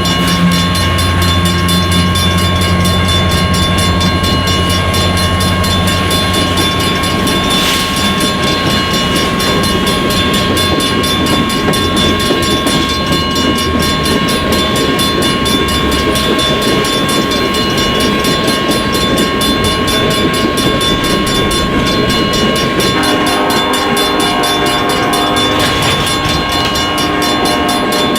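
BNSF SD70ACE diesel locomotives passing close by with a deep engine rumble that fades after about fifteen seconds. Loaded coal cars then roll past with a steady noise of wheels on rail, and a constant high-pitched whine runs through it all.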